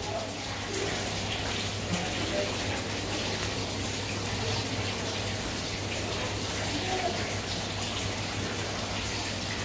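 Steady rush of moving water from an aquarium's tank circulation, over a low steady hum.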